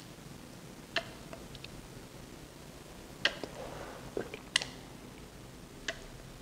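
A few light clicks and taps, spread a second or two apart, from a metal tablespoon and a small plastic squeeze bottle as gel food colouring is squeezed into the spoon held over a glass bowl.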